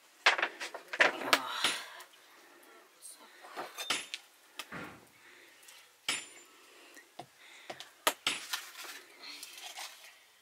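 Irregular clinks, knocks and rustling of kitchen work: pots, dishes and utensils being handled, in scattered bunches with short pauses between.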